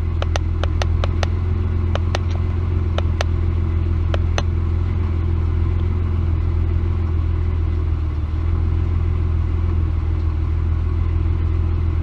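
A 1999 Ford Explorer's 4.0 L SOHC V6 idling at about 850 rpm, heard from inside the cabin: a steady low drone from a rough idle. The engine is running lean, which the owner suspects comes from a vacuum leak or a fuel delivery problem. In the first few seconds there is a quick run of small clicks from the handheld scan tool's buttons as its live data is scrolled.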